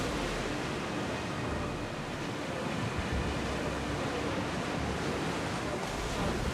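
Sea waves: a steady wash of surf noise with no breaks.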